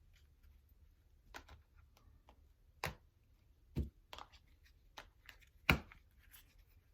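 Tarot cards being handled: a few soft, scattered taps and clicks as cards are drawn and laid down, with the strongest tap about two-thirds of the way through.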